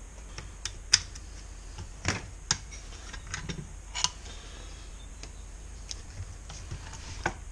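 Irregular light clicks and knocks of small tools and engine parts being handled on a workbench while a small engine is taken apart. The loudest click comes about a second in.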